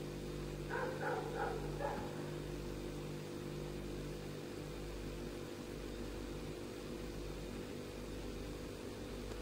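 Steady low electrical hum with faint room noise. About a second in come four short, faint sounds in quick succession.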